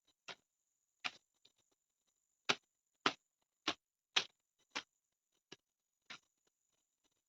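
A series of sharp clicks, about nine, spaced irregularly roughly half a second apart, over a faint steady high whine.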